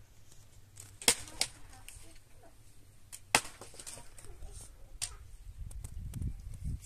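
Four sharp chopping strikes, unevenly spaced, two close together early and two more a couple of seconds apart. A low rumble builds in the last second or so.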